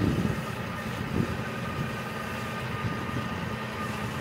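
Massey Ferguson tractor's diesel engine running steadily while its front loader lifts the bucket, with a thin steady whine over the low rumble.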